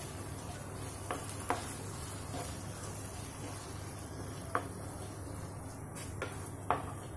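Wooden spatula stirring and scraping thick ground coconut masala paste in a nonstick kadai, with a faint sizzle as the paste is sautéed to cook off its raw smell. The spatula knocks against the pan several times, the sharpest about one and a half seconds in and near the end, over a low steady hum.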